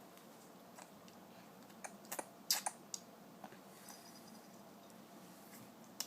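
A few sharp clicks and taps, clustered about two to three seconds in, with one more click near the end.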